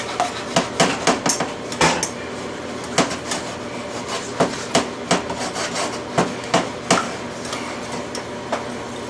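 Wire whisk clicking and scraping against a stainless steel sauté pan in irregular taps, as butter is whisked into a reduced cream sauce off the heat. A steady hum runs underneath.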